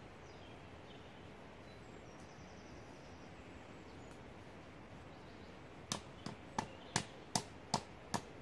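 Seven sharp knocks in quick succession near the end, about two or three a second, from the homemade axe being tapped while it is worked in the hands. Before them only a faint outdoor background with a few faint bird chirps.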